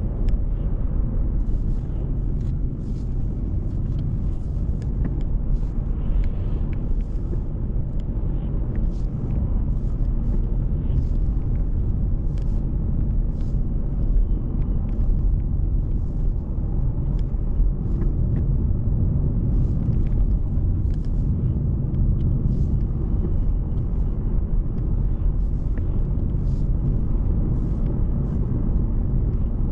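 Steady low rumble of a car driving, road and engine noise, with faint scattered ticks throughout.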